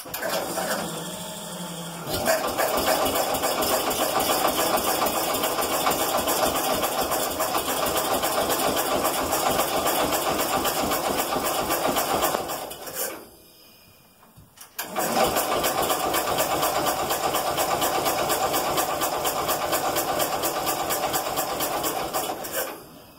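Garden tractor engine cranking on its starter without catching, in two long attempts of about ten and eight seconds with a short pause between. It turns over but won't start: the spark is weak, which the owner puts down to bad ignition points.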